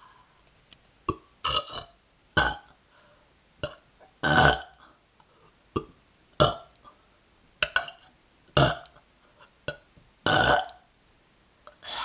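A person burping: a string of short burps, one every second or two, the loudest and longest about four seconds in.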